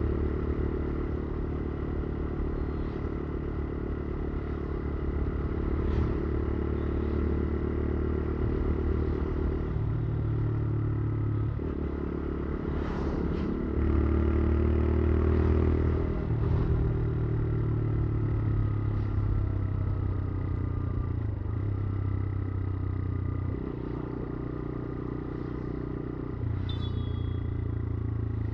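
Motorcycle engine running on the move, its pitch and level stepping up and down several times as the throttle and gears change.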